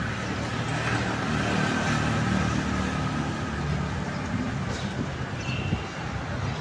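Street traffic: a motor vehicle's engine running close by over a steady hum of town traffic.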